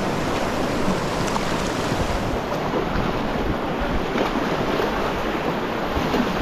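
Steady rushing of whitewater in a river rapid, with wind noise on the microphone.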